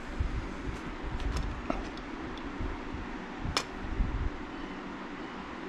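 A few light clicks and taps of brass door hinges being handled and set against the plywood, with one sharper click a little over halfway through, over a steady fan hum.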